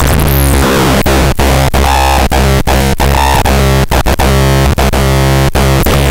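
Eurorack modular synthesizer run through a Schlappi Engineering 100 Grit distortion and feedback module: a dense, distorted electronic drone over a steady low tone. It is cut by brief, irregular breaks about twice a second.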